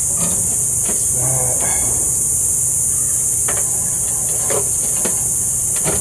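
A few sharp, short clicks and rattles of wires and connectors being handled inside an air conditioner's electrical control panel, over a steady high hiss and a low rumble.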